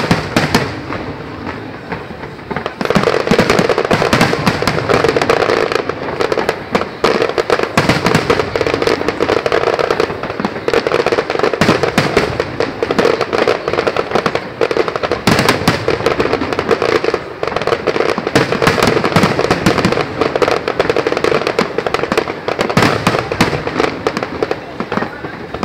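Fireworks display: aerial shells bursting and crackling in a rapid, continuous barrage that grows much denser and louder about three seconds in.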